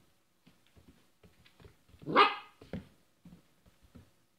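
An 8-week-old standard poodle puppy barking once, about halfway through, followed by a shorter, quieter bark.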